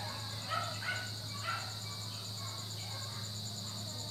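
Steady background ambience: a low hum under a high, evenly pulsing chirr, with faint distant voices about half a second and a second and a half in.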